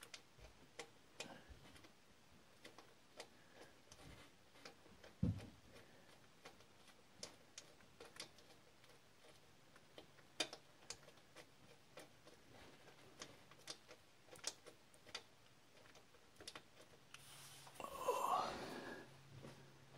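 Faint, irregular light clicks of small wrenches working at stubborn bolts and nuts, one to two a second. One dull knock about five seconds in, and a rustle of handling near the end.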